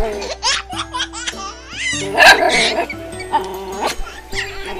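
Dogs barking and yipping over background music, with laughter mixed in.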